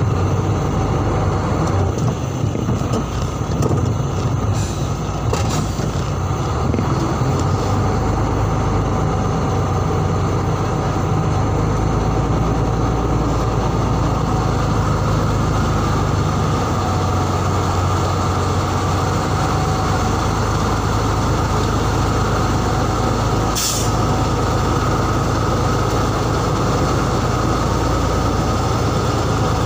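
Cargo truck's diesel engine running steadily while driving, heard from inside the cab, with one brief sharp hiss-like burst about three-quarters of the way through.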